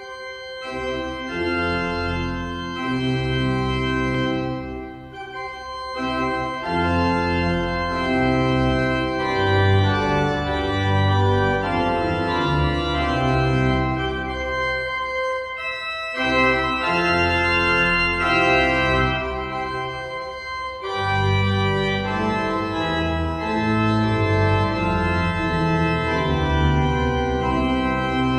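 Church pipe organ playing a slow piece of held chords with deep pedal notes, breaking off briefly between phrases about five, sixteen and twenty-one seconds in.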